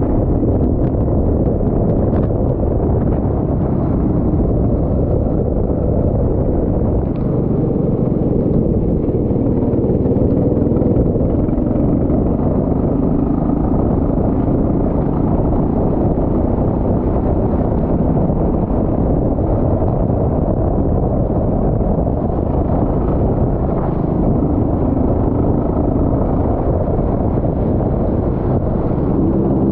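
Racing kart engine running hard and continuously, its pitch slowly rising and falling as it accelerates and slows through the corners.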